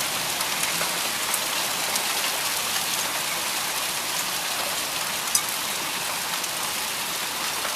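Heavy rain and hail falling steadily: an even hiss of rain with a few sharper ticks of hailstones striking.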